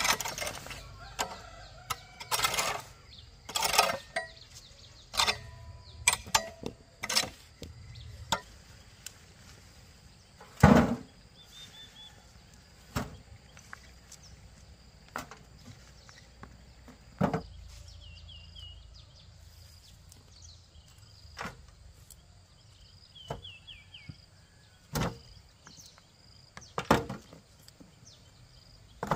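Irregular chopping blows of a hand tool, single sharp strikes a second or several apart, the loudest about eleven seconds in, some of the early ones ringing briefly. Small birds chirp faintly between the strikes.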